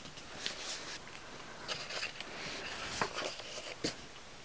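Pages of a glossy album photobook being handled and turned, with soft paper rustles and a few light clicks and taps, the sharpest about three seconds in and again shortly before four seconds.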